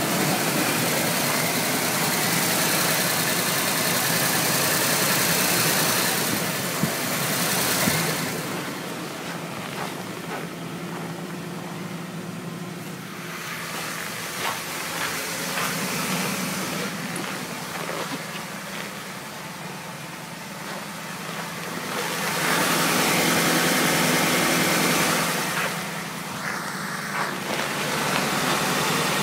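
2007 Ford Expedition's 5.4-litre V8 idling steadily shortly after a cold start at −25 °C. A rushing hiss over the engine hum grows louder for several seconds at a time, twice.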